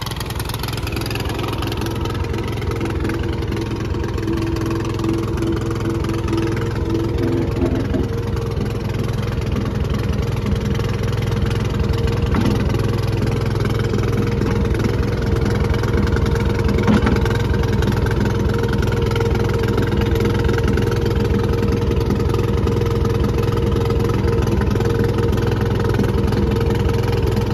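The small engine of a tow-behind backhoe running steadily, getting gradually louder, with a higher steady tone over it for a few seconds from about three seconds in, as the machine is worked.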